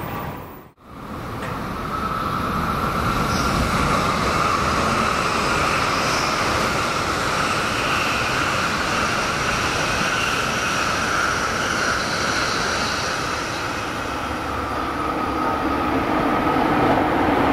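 Tokaido Shinkansen bullet train passing at moderate speed: a steady rush of wheels on rail and air, with a high ringing tone over it. The sound cuts out abruptly for a moment under a second in, and near the end a second, commuter train approaches and the rumble grows.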